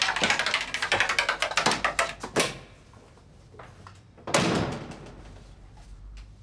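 A quick run of knocks and clicks for about two and a half seconds, then a door banging shut a little after four seconds.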